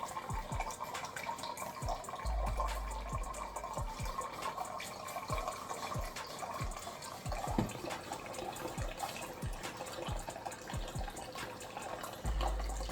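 Water trickling steadily from an alkaline water filter into a measuring cup as the cup fills. A low hum comes in briefly about two seconds in and again near the end.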